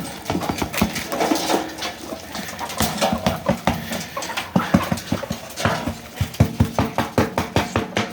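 Chickens feeding: a dense, irregular run of quick pecking taps, mixed with short animal calls.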